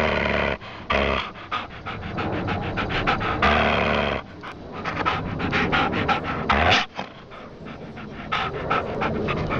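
A dog panting fast, several quick breaths a second, broken by a few longer, louder noisy stretches.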